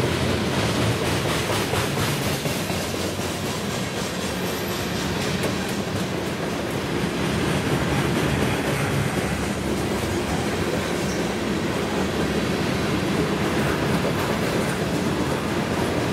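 Freight train cars, covered hoppers and tank cars, rolling past: a steady rumble of steel wheels on the rails, with repeated clacks as the wheels cross rail joints.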